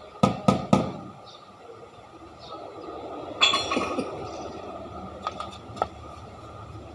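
Three quick sharp knocks, then a short clatter of clinks about halfway through, and two light clicks near the end.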